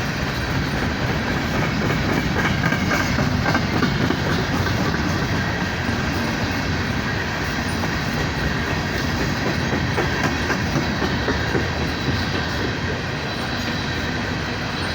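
Empty coal train cars rolling past close by: a steady, loud rumble of steel wheels on the rails that holds at one level throughout.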